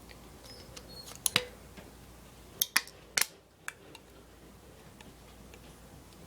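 Scissors snipping thin aluminium can sheet: a few sharp, separate clicks spread over a few seconds.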